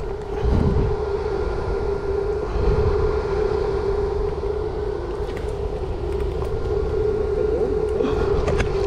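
A steady droning hum that holds one pitch throughout, over low rumbling noise.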